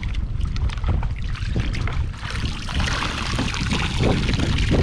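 Wind buffeting the microphone in a fluctuating low rumble, over irregular splashing of shallow sea water.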